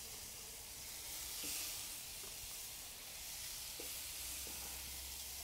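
Lamb chops sizzling on hot grill grates: a steady frying hiss, with a few faint taps.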